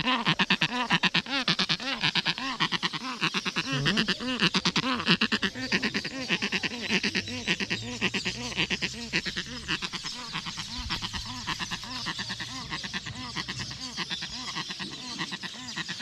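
A hand-tame stork calling nonstop with a rapid, rasping, bleat-like call while it crouches with its wings spread and drooped. The call is louder for the first several seconds, then carries on somewhat quieter.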